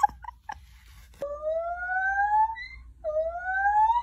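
Siren-like whooping calls: two long notes, each sliding steadily up in pitch for about a second and a half, the second climbing higher. The sound is likened to a monkey sounding like a siren.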